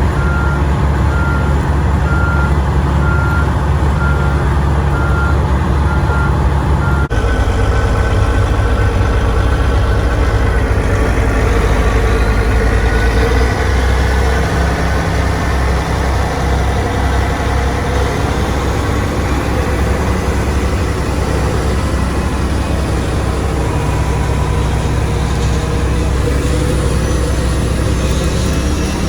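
Heavy diesel machinery engine running steadily, with an electronic warning beep repeating evenly over it. About seven seconds in the sound cuts abruptly to another steady diesel engine with no beeping.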